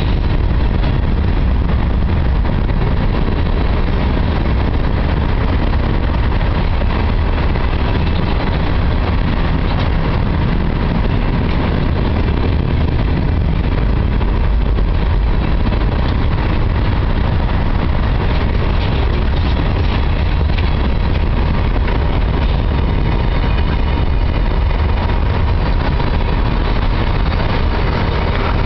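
Freight cars (covered hoppers, then tank cars) rolling past close by: a steady, loud rumble of steel wheels on the rails, with a faint steady tone above it.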